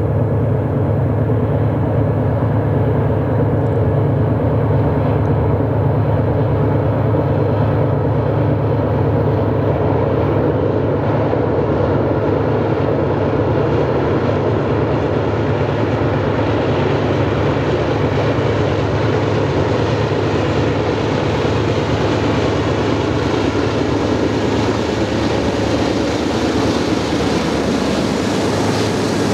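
Two GE C44-9W diesel locomotives hauling a double-stack container train, their engines running with a steady low drone as they draw closer and pass. From about ten seconds in, a rising rumble and hiss of wheels on rail builds as the container well cars roll by.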